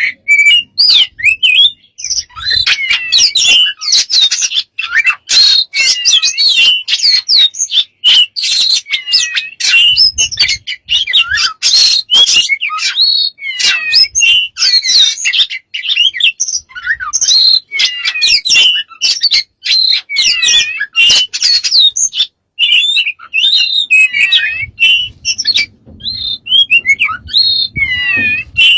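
Pet bird chattering nonstop: a fast, varied stream of chirps, whistles and clicks.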